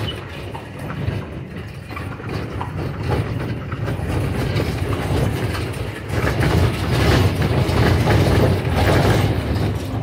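Horse-drawn carriage rolling along the street, its wheels and body rattling and clattering in a steady low rumble that grows louder in the second half.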